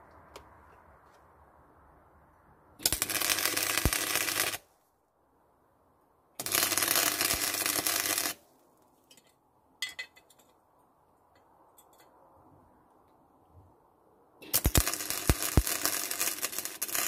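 Electric arc welding of steel angle iron onto a bracket: the arc crackles loudly in three bursts of about two seconds each, with quiet gaps between them.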